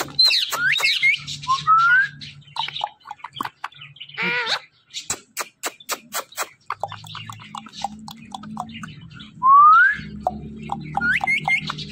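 Indian ringneck parakeet whistling and calling: several short rising whistles, one harsh call about four seconds in, and runs of quick sharp clicks in between.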